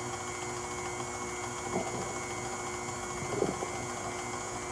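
KitchenAid tilt-head stand mixer running steadily, its motor and beater churning thick pound cake batter in a stainless steel bowl.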